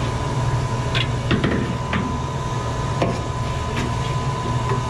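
Scattered light knocks and clicks of an electrical box and wiring being handled against the exhaust fan's metal housing, over a steady low hum.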